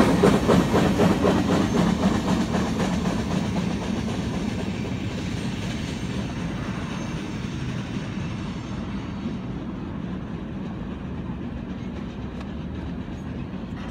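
Norfolk Southern freight train's cars rolling past, the wheels clacking over the rail joints. The sound fades steadily as the train moves away.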